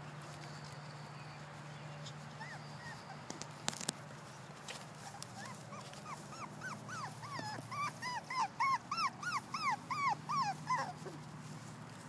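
Miniature poodle puppy whimpering: from about halfway through, a rapid run of short high yelping whines, three or four a second, growing louder toward the end.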